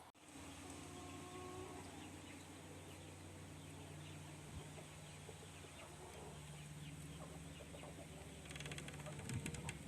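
Chickens making faint, soft clucks over a steady low hum, with a stretch of rapid clicking or rustling near the end.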